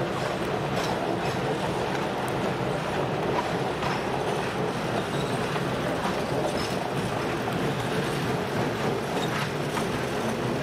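Passenger cars of a train rolling past, steel wheels clicking on the rails now and then over a steady rumble.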